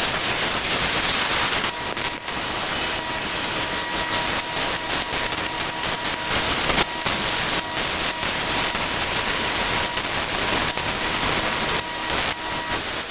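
Power grinder grinding a chamfer onto the striking end of a coil-spring steel chisel: a steady hiss of abrasive on steel, with a faint high whine through most of it, starting abruptly.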